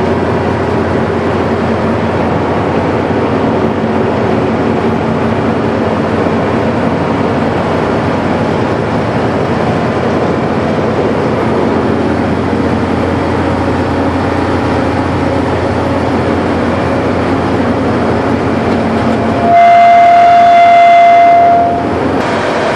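Caterpillar 3406 diesel running steadily on a Norkot 9100 horizontal grinder. About 19 seconds in, a loud horn-like steady tone sounds for about two seconds, the loudest thing heard, then cuts off.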